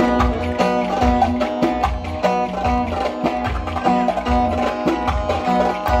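Live Ankara oyun havası dance music played through loudspeakers: a plucked bağlama melody over a steady, regular beat.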